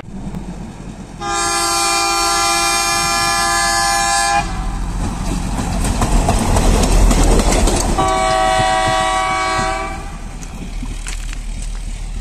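Rail maintenance vehicle passing on the track, sounding its horn twice: a steady blast of about three seconds, then the noise of its engine and wheels on the rails growing loudest as it goes by, and a second blast of about two seconds.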